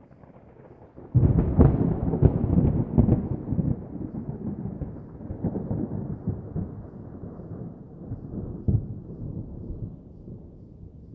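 Thunder: a sudden loud crack about a second in, then a long rolling rumble with a few further cracks, slowly fading away.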